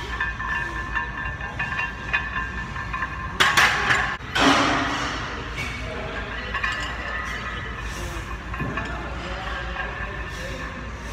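Background music over gym noise while a loaded barbell is bench-pressed; about three and a half seconds in, a loud metallic clink of the bar and plates, followed by a burst of noise that fades over a second or two.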